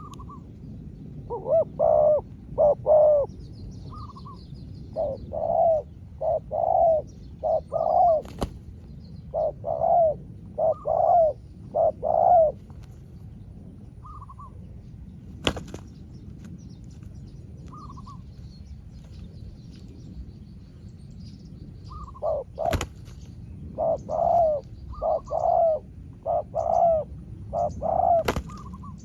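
Spotted doves cooing back and forth in runs of several low coos with pauses between, the territorial calling-match between a decoy and a wild dove. A few sharp clicks fall between the runs, and small birds chirp faintly.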